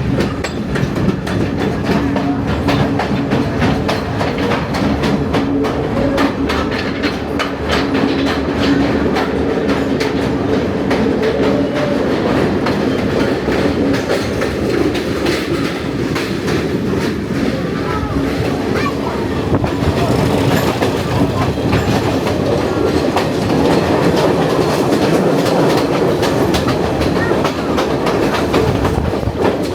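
Passenger train running along the line, its wheels clicking steadily over the rail joints beneath a continuous rumble of running noise.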